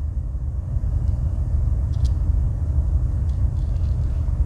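Steady low rumble, with a couple of faint clicks.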